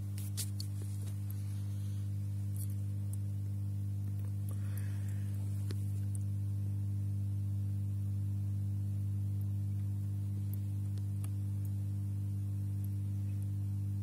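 Steady low hum with no change in pitch or level, with a few faint clicks in the first second.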